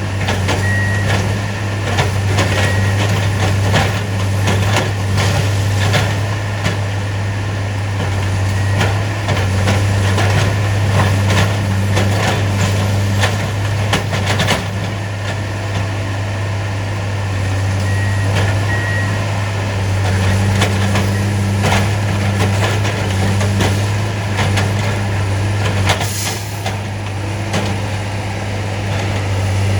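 Diesel engines of railroad track-maintenance machines running steadily, with frequent sharp metallic clanks and knocks from the work on ties and rail. A faint short beeping alarm sounds a few times near the start and again about two-thirds of the way through.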